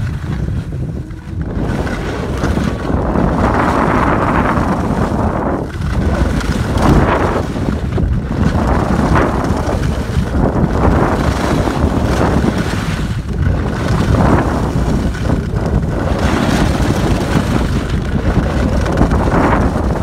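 Wind buffeting the microphone of a phone carried downhill by a skier, mixed with skis scraping over packed snow. The noise swells and eases every second or two, with the turns.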